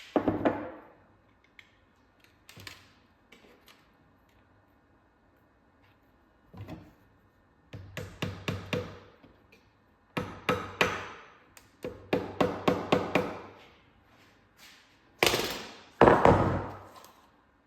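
Hard taps and knocks on a solid object: a few single knocks, then quick runs of taps, about five a second, and two heavier knocks near the end.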